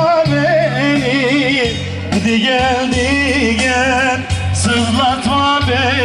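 Turkish folk music: an ornamented melody that wavers and trills over sustained low bass notes.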